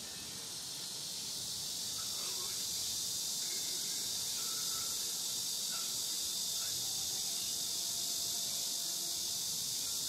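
Steady, high-pitched chorus of insects outdoors in summer vegetation, swelling in over the first few seconds, with a few faint short chirps scattered through it.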